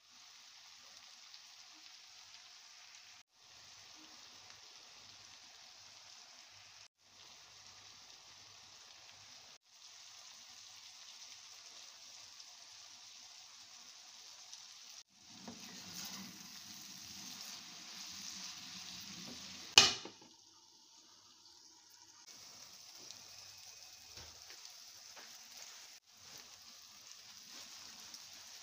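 Okra and onions frying in a pan, a steady sizzle cut into short pieces. About halfway through it grows louder for a few seconds, ending in one sharp click.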